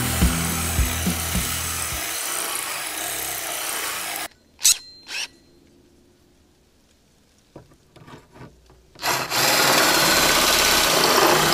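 Cordless drill driving a hole saw through the sheet-metal side of a school bus: a harsh, steady grinding cut. It stops abruptly about four seconds in, leaving a couple of clicks and near silence, then the cutting starts again about nine seconds in.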